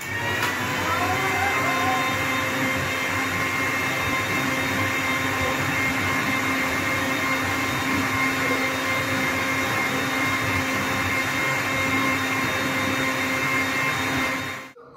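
Electric countertop blender running steadily at full speed, blending milk and Nutella into a milkshake, with a steady whine over the motor noise. It starts abruptly and switches off shortly before the end.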